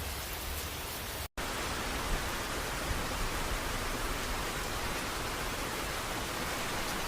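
A steady, even hiss of noise, like light rain, with a split-second dropout to silence about a second in.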